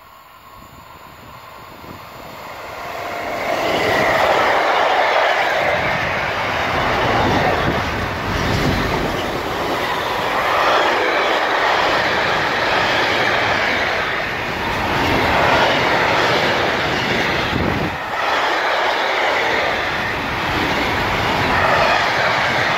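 Container freight train hauled by a Class 193 electric locomotive passing close by on the track. It grows loud over the first four seconds, then holds a steady rolling noise of the wagons' wheels on the rails, rising and falling a little as the wagons go by.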